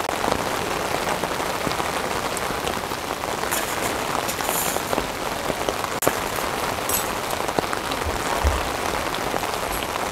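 Heavy rain falling steadily, a dense even hiss of drops, with a few scattered sharp taps close by.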